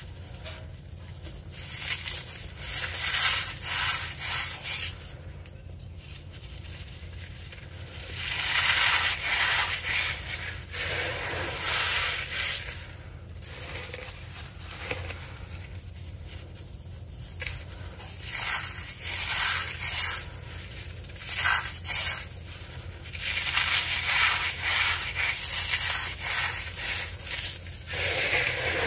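Crumbled cornstarch pieces squeezed and crushed by hand: repeated bursts of crisp crunching and powdery rubbing, with a few quieter pauses between handfuls.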